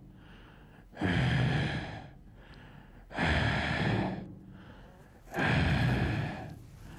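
Loud, heavy breathing of an unseen stalking creature: three long breaths about two seconds apart, with quieter breaths between them.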